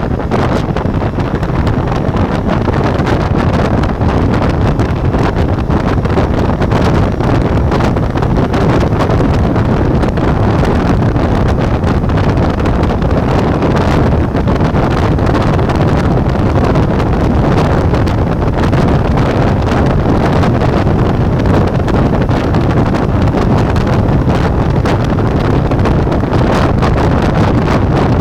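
Steady wind rush on an action camera's microphone from a Ducati Multistrada V4 on the move, with the motorcycle's V4 engine running underneath it.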